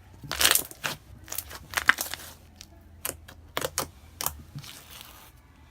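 Clear slime made from Apricola glue being stretched open, fanned and folded shut by hand, giving irregular wet clicks and crackling pops. The loudest pop comes about two seconds in.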